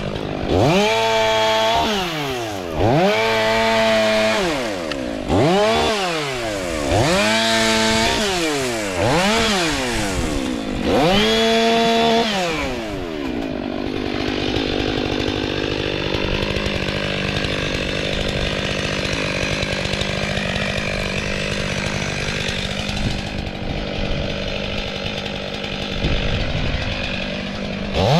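STIHL MS 500i fuel-injected two-stroke chainsaw revved up to full throttle and back, about six times in the first half, each burst held high for a moment. After that it runs on as a steadier engine sound without the big rises and falls in pitch.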